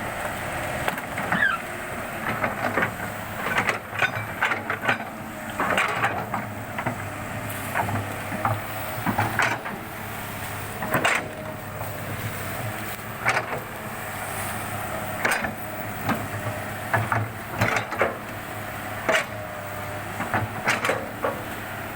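Excavator engine running steadily while the machine works across mud on timber mats, with many sharp knocks and clanks at irregular intervals and an occasional brief squeal.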